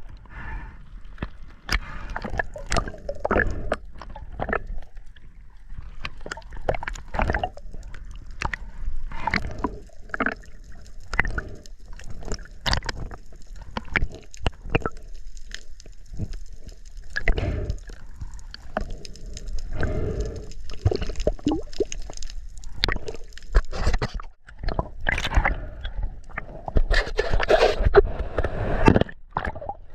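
Sea water sloshing and gurgling, with many irregular knocks and clicks.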